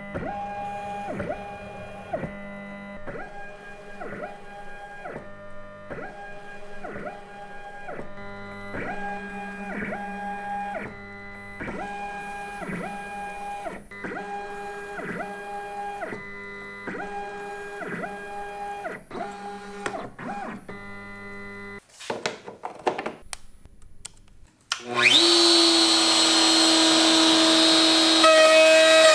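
Stepper motors of a Handibot portable CNC whining in steady tones that switch pitch every half second or so as the machine steps back and forth. A few clicks and a pause follow, then near the end a much louder steady sound starts with a brief rise in pitch.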